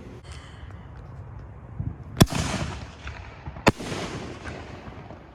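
Aerial firework canister shell (5-inch) going off: two sharp bangs about a second and a half apart, each followed by a long rolling rumble that dies away.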